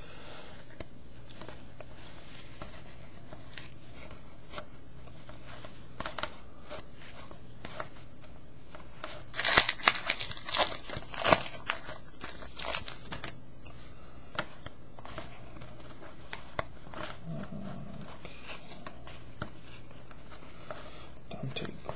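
Wrapper of a trading card pack crinkling and tearing as it is opened, with the cards rustling, in scattered crackles that are loudest about halfway through.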